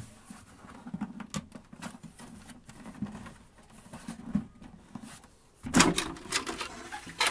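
Plastic rear case of an Apple Macintosh SE being worked loose by hand, with scattered clicks and knocks as it is pried and rocked at the seam. A louder burst of scraping and clatter comes near the end as the case comes free of the base.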